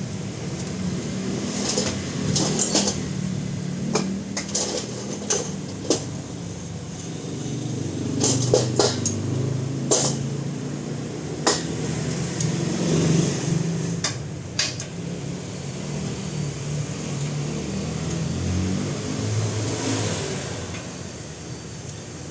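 Metal tools clinking and knocking on car parts in a repair shop, in a dozen or so separate sharp strikes, some in quick pairs, over a steady low hum.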